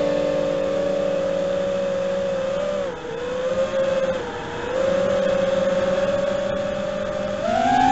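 FPV quadcopter's brushless motors and propellers whining at a steady pitch that changes with the throttle: two short dips about three and four seconds in, then a rising whine near the end as the throttle is pushed up.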